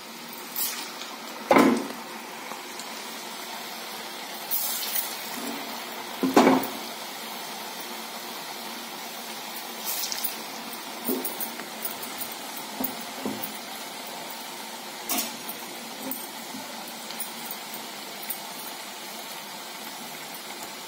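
Hot oil sizzling and bubbling steadily as garelu, lentil-dough fritters, deep-fry in a steel kadai. There are two loud knocks in the first seven seconds and scattered lighter clicks. The sizzle surges briefly about ten seconds in as another dough patty goes into the oil.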